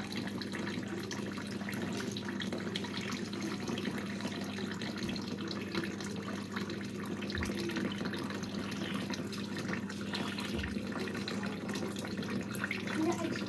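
Water pouring in a steady thin stream from a glazed clay jug into a plastic bottle packed with green olives, filling the bottle to cover the olives for curing.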